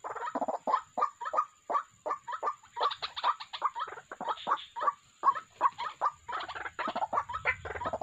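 White-breasted waterhens calling: a rapid, uneven series of short harsh notes, about three or four a second.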